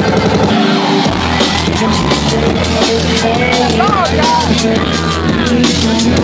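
Loud electronic dance music from a DJ set, with a fast, steady drum beat over bass and sustained synth tones. About half a second in the bass drops out for roughly half a second, then comes back.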